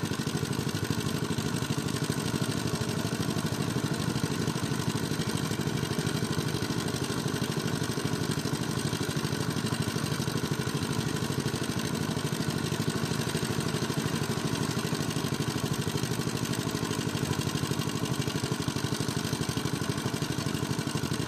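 Engine of a shallow-tube-well irrigation pump running steadily, with water gushing out of the pump's outlet.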